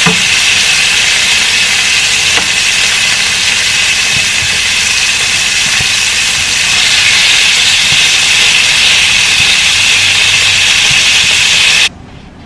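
Lamb chops searing in hot olive oil in a non-stick frying pan: a loud, steady sizzle that cuts off suddenly near the end.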